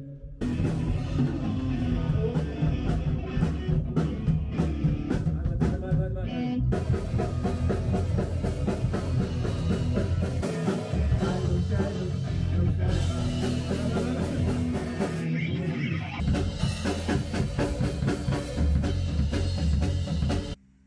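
Rock band playing a song together in a rehearsal room: a drum kit, electric guitar and bass guitar.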